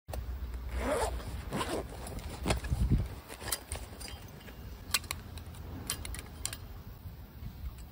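Handling noise from a small metal SOTO camping stove: rustling and scraping for the first few seconds, then a series of short, sharp metallic clicks at irregular intervals.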